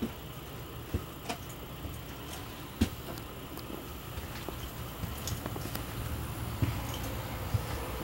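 Footsteps and handling knocks from a person walking a handheld camera through a travel trailer's interior: a few scattered sharp knocks, the loudest about three seconds in, over a steady low hum.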